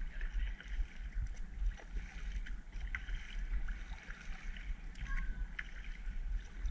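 Kayak being paddled on calm harbor water: small splashes and water dripping and lapping around the paddle and hull, over a fluctuating low rumble of wind on the microphone.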